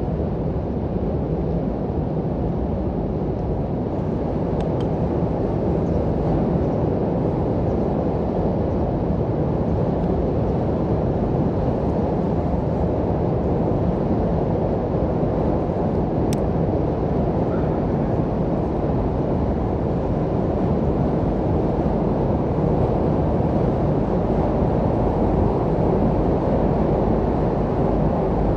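Steady low rumble aboard a car ferry as it berths, from the ship's engines and wind on deck. A single sharp click comes about 16 seconds in.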